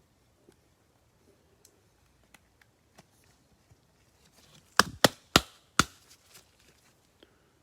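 Handling noise from trading card packs and cards on a tabletop: scattered light clicks, then four sharp knocks in quick succession about five seconds in.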